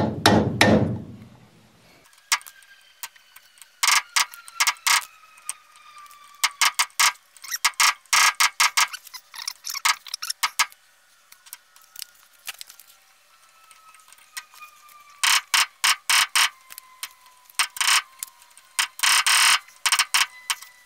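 A heavy hammer blow at the start, then bursts of quick, light metallic taps and clinks: hammer and punch bending over the tab washer on a Morris Minor rear hub. A faint thin tone slides slowly downward underneath.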